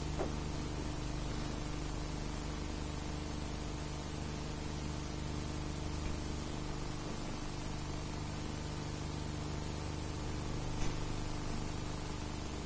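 Steady hiss and low hum of an old video recording, with no music or voices. One soft thump about eleven seconds in, a gymnast landing on a floor mat.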